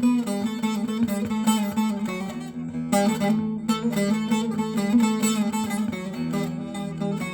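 Background music played on plucked strings, guitar-like, with quick picked notes over a held low tone.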